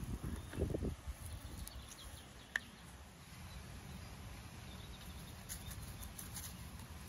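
Quiet outdoor garden ambience: a few soft low rustles in the first second, a single sharp click about two and a half seconds in, then a faint steady low rumble.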